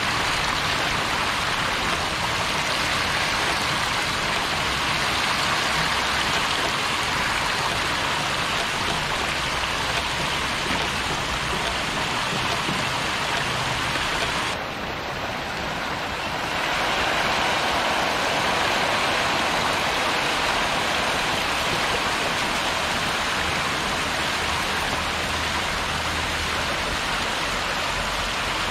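Dense mass of hybrid catfish thrashing and splashing at the surface of a crowded tank in a feeding frenzy: a steady, rain-like hiss of countless small splashes. It softens briefly about halfway through, then carries on.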